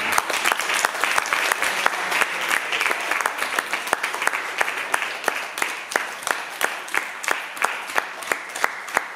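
An audience of young children applauding. The clapping is dense at first, then thins in the second half into separate claps falling into an even beat, about three a second.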